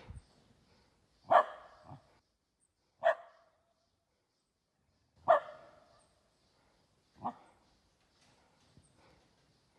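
A dog barking: four loud single barks about two seconds apart, with a few fainter ones at the start and near the end.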